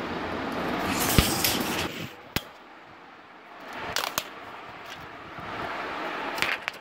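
Rustling handling noise for the first two seconds, with a few sharp clicks, as a tape measure and the handheld camera are moved about; quieter after that, with more clicks around four seconds and near the end.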